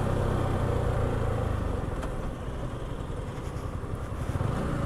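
Yamaha R15 V4's 155 cc single-cylinder engine running under way. Its steady low note fades about two seconds in and picks up again near the end.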